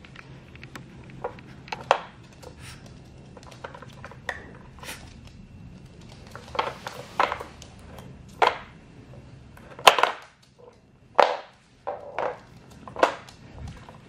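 Hard plastic lids, cones and sliders of a Trixie Dog Activity Flip Board clacking and knocking as a small dog noses and paws at them for treats: irregular sharp clicks, the loudest about ten seconds in.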